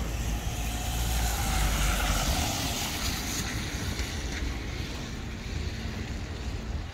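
A vehicle passing on a wet street, its tyre and engine noise swelling to a peak about two seconds in and then slowly fading.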